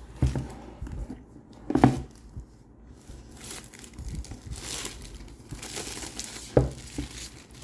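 Packaging on a board-game box being crinkled and torn open by hand, with irregular rustling and a few sharp handling bumps.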